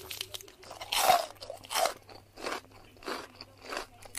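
Crisp, hollow panipuri shells crunching as they are bitten and chewed, in a string of about five short crunches, the loudest about a second in.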